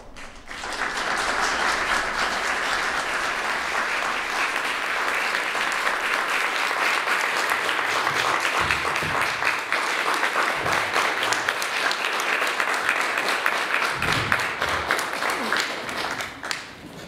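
Audience applauding: many people clapping, starting about half a second in, holding steady, and dying away near the end.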